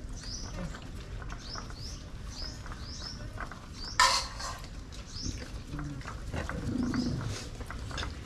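Birds chirping over and over in short, high, rising peeps, two or three a second, with one loud, sharp sound about halfway through.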